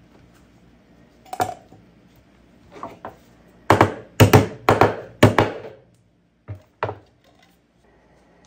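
Hammer knocking the pressed lid back onto a metal can: a quick run of about six hard blows, then two lighter knocks.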